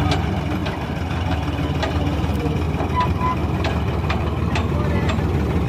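Farm tractor's diesel engine running steadily at low speed as it moves its trailer, with sharp knocks every half second or so. Two short high beeps about three seconds in.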